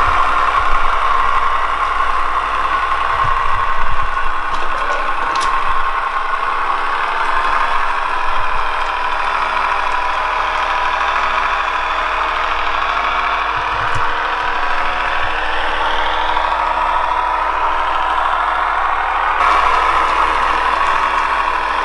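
Model railbus with trailer car running along the layout track: a steady, engine-like drone with a brief rise in pitch about two-thirds of the way through.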